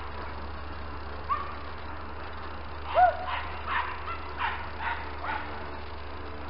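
Hunting dogs baying in short yelping calls, the loudest about three seconds in, followed by a run of calls about two a second: hounds giving tongue on the scent of roe deer during a drive.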